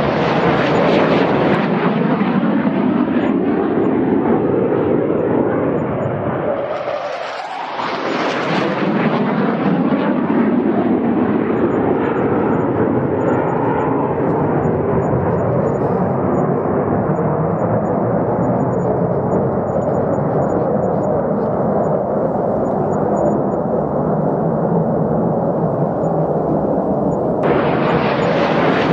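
Fighter jet engine noise, loud and continuous, with the pitch sweeping as the jets pass. It dips briefly about seven seconds in, then returns with a brighter hiss, and the hiss brightens suddenly again near the end.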